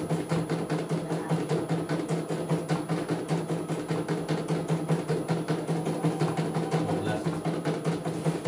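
CNY E900 computerised embroidery machine stitching a design: a rapid, even clatter of needle strokes over a steady motor hum.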